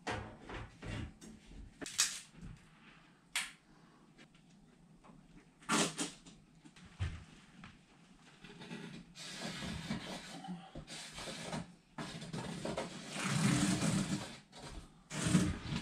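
Black single-wall steel stove pipe and fittings being handled and fitted by hand: a few sharp knocks and clanks over the first seven seconds, then about six seconds of rustling and scraping.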